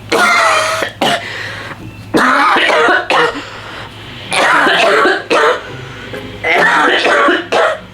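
A person coughing hard, staged as coughing up blood: four long, harsh coughs about two seconds apart, each followed by a short one.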